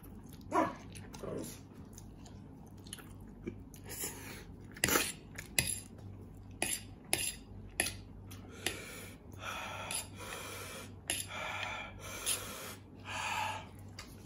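A man eating spicy instant noodles with a fork: the fork clicks several times against the plate, and in the second half come several longer slurps as strands are sucked up, with chewing in between.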